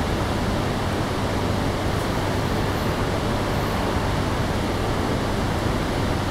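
Steady station ambience at a Shinkansen platform: an even rushing noise with a constant low hum, unchanging throughout.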